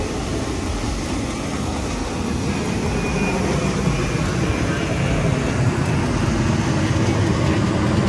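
Jet airliner flying low overhead, a steady engine noise that slowly grows louder.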